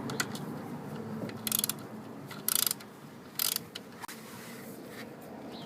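Ratchet wrench clicking in three short bursts about a second apart, as it is swung back and forth.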